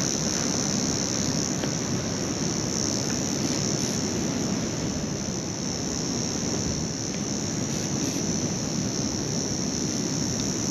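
Steady wash of ocean surf with a constant high-pitched drone of insects over it.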